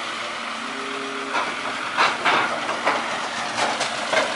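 Sumitomo amphibious excavator running steadily, with a series of about six sharp knocks starting about a second and a half in.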